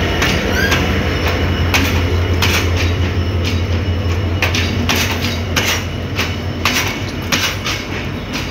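Sri Lanka Railways M11 class diesel locomotive passing close with its engine running, then its passenger coaches rolling by, wheels clacking over rail joints and points. The low engine hum fades about halfway through while the irregular clacks go on.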